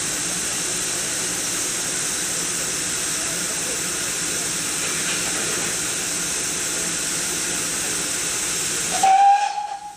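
Steam locomotive standing at a platform with a steady hiss of steam. About nine seconds in, a loud whistle blast sounds and carries on to the end.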